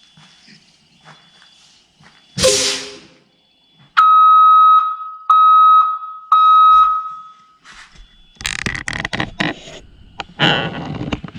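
An electronic alarm beeps three times, steady and high-pitched, each beep a little under a second long. Before it comes a short burst of noise, and after it a run of clicks and rattling.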